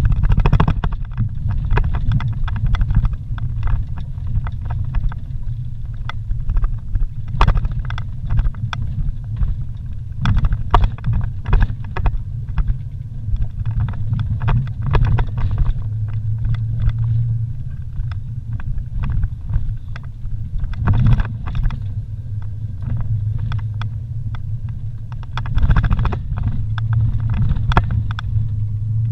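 Vehicle engine and drivetrain rumbling steadily while driving a rough dirt road, with frequent knocks and rattles as it jolts over bumps.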